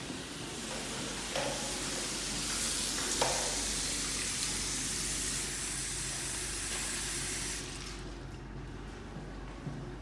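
Water running from bathroom faucets into porcelain sinks as hands are washed, with a couple of light knocks; the water stops about three-quarters of the way through.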